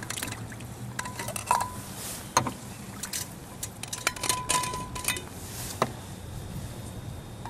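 Stanley steel vacuum bottle being opened: its steel cup twisted off and set down on a metal box lid, then the stopper unscrewed and set down, giving a string of small metallic clinks and taps. A thin squeak lasts about a second around four seconds in.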